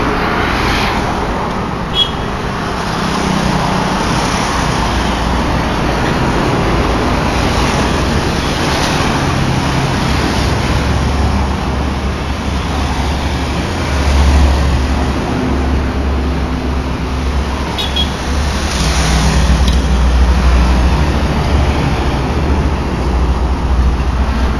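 Roadside traffic with trucks and cars going by: a steady low engine rumble and tyre noise that swells as vehicles pass, loudest about fourteen and twenty seconds in. A brief sharp click about two seconds in.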